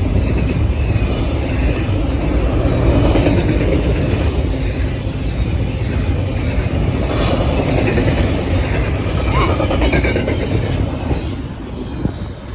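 Double-stack intermodal freight train's cars rolling past, a steady rumble with wheel clatter on the rails that eases off near the end.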